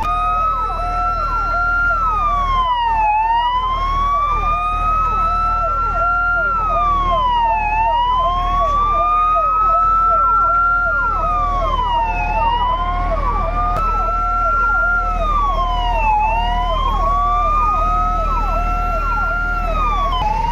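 Emergency vehicle sirens sounding together. One slow wail climbs gradually and drops back more quickly about every four and a half seconds, over a second siren's tone that pulses on and off about twice a second.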